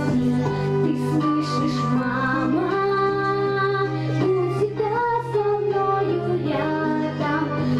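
A girl singing a song through a handheld microphone over an instrumental accompaniment with a sustained low bass note.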